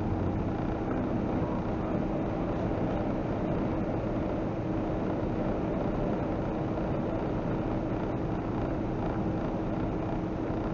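Heavy truck cruising at highway speed, heard from inside the cab: a steady drone of engine and road noise with a constant hum.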